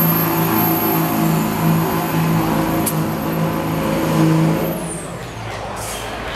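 Dodge Ram's 24-valve Cummins 5.9 L inline-six turbodiesel under full load on a truck pull, with a loud, very high-pitched turbo whistle held steady. About four and a half seconds in the engine lets off and the whistle winds down, falling in pitch.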